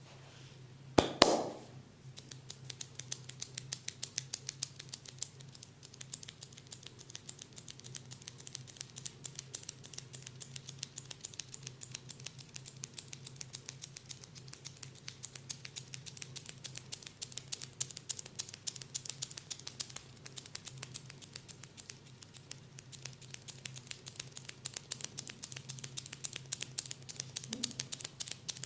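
Fast, even, light tapping on the forehead during a head massage, a long run of tiny sharp taps. About a second in there is one brief louder rustling knock.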